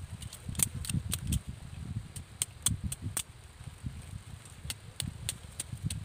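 Machete cutting and trimming a thin green plant stem: a string of short, sharp clicks at irregular spacing, over a low rumble.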